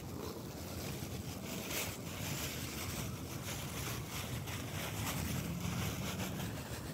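Wind rumbling on a phone's microphone, a steady low noise with some rustle as the phone is handled.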